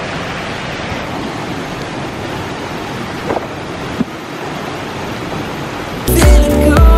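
River water rushing over rocks, a steady wash of noise. About six seconds in, background music with a steady beat comes in.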